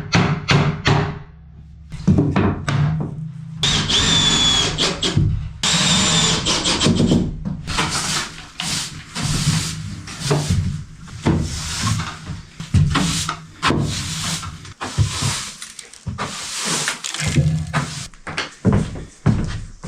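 Work noises from fitting vinyl plank flooring: knocks and rubbing of boards, with a brief high power-tool whine a few seconds in, over background music.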